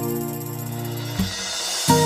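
Background music: a held chord whose low notes drop out a little past the middle, leaving a thin swelling hiss before the next chord comes in.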